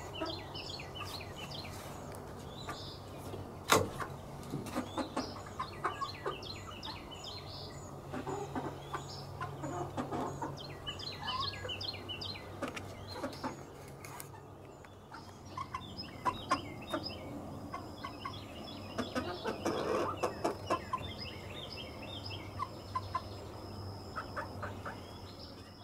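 A flock of hens on their roost making soft clucks and chirps throughout, with a sharp knock about four seconds in. A thin, steady high tone sounds through the second half.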